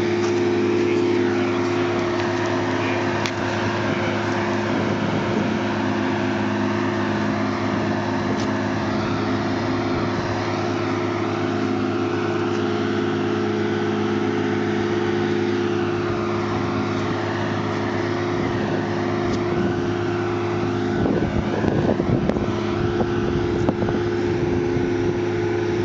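An engine running steadily at a constant speed, with a low, even hum over a noisy wash.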